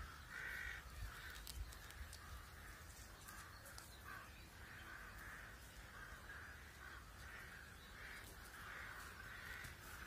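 Faint, continuous calling of birds, many overlapping calls in quick succession, with a few soft clicks.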